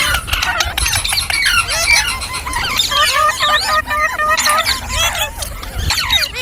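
Several green parrots chirping and squawking, a rapid stream of short, overlapping calls that rise and fall in pitch.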